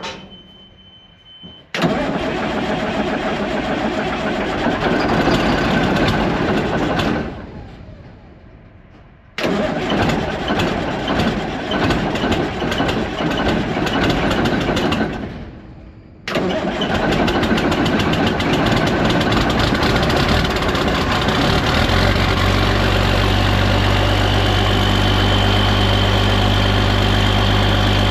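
John Deere 2030 tractor engine being cranked by its starter three times, with two short pauses between the tries; on the third try it catches about two-thirds of the way through and settles into a steady idle.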